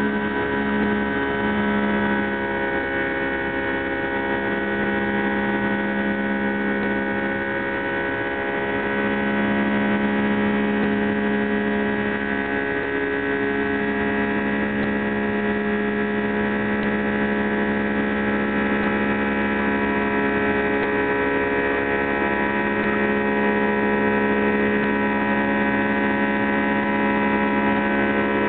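Boeing 757's jet engines heard inside the cabin during the climb after takeoff: a steady drone of several held whining tones over a rushing noise.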